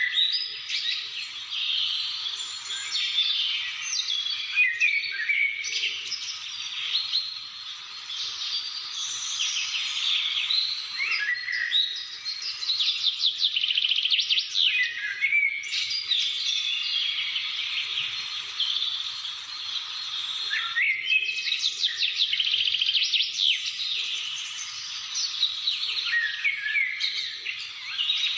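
A chorus of many songbirds singing at once, a dense overlapping mix of chirps, trills and fast repeated notes.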